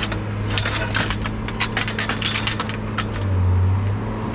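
Scrap being rummaged and handled: a run of irregular clicks, knocks and light clatter over a steady low machine hum that swells briefly about three seconds in.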